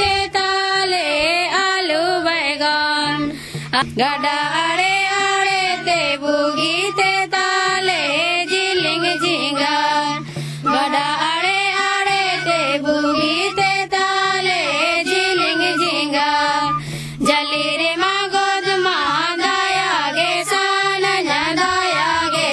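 Background music: a solo voice singing a slow, ornamented melody over a steady low drone, with short breaks for breath about every seven seconds.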